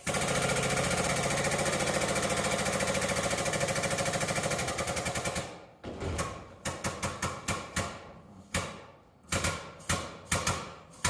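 Air-over-hydraulic pneumatic jack on a 30-ton shop press pumping, a fast steady pulsing that stops about five and a half seconds in. After it come a string of short, sharp knocks as the press holds the bearing under load.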